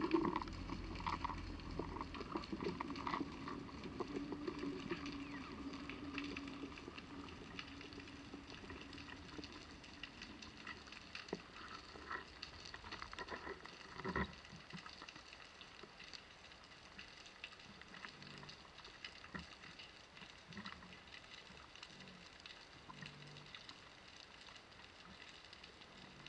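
Underwater ambience heard through a submerged camera: a faint, steady crackle of many tiny clicks, with a low hum in the first several seconds that fades out and one sharper click about 14 seconds in.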